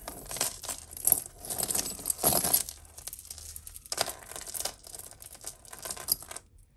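Tangled costume jewellery being pulled apart by hand: beads and metal chain links clicking and clinking against each other with rustling, in quick irregular clatters that stop just before the end.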